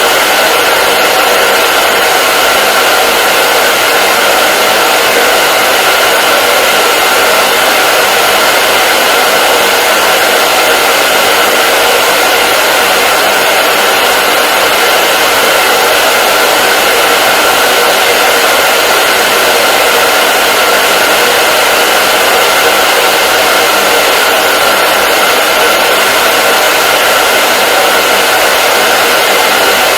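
Hair dryer running continuously: a steady, even rush of blown air with a constant motor whine near 1.4 kHz, no change in speed or pitch.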